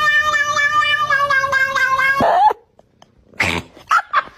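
A domestic cat's long, drawn-out yowl held on one wavering, slowly falling pitch, ending abruptly about two seconds in. After a brief silence come a few short bursts of noise.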